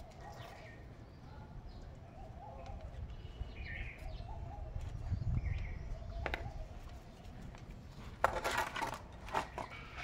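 Outdoor street background with a few short, high chirps. Near the end comes a louder rough scraping clatter as a metal food plate is set down on paving stones.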